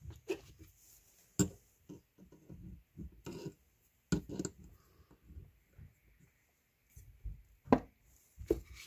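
Small metal hand tools being handled around an aluminium carburetor body on a workbench: scattered light clicks and clinks with soft handling noise between them, the loudest a single sharp click about a second before the end.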